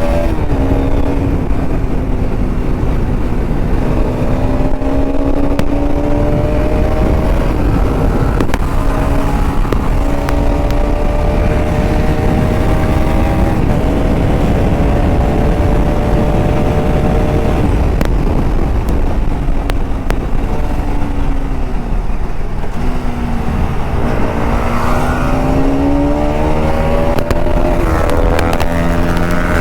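Bajaj Pulsar RS200's 200 cc single-cylinder engine pulling hard through the gears: the engine note climbs, then drops at each upshift, over and over. About 22 seconds in it eases off, then climbs again.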